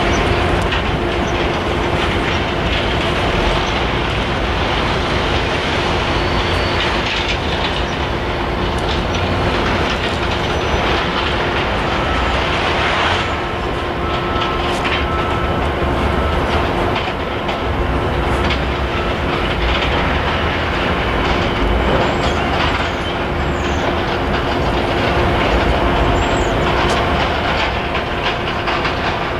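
A train rolling past, its railcars running by steadily with repeated clicks of wheels on the rails and a steady low hum. A few short high wheel squeals come in the second half.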